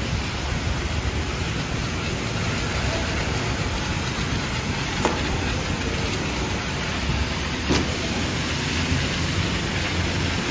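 High-pressure car-wash hoses spraying water and foam, a steady spray, with two short clicks about five and nearly eight seconds in.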